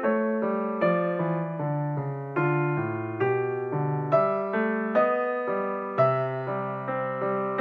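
Background piano music: a slow minuet, single notes and chords struck at an even pace, each ringing and fading into the next.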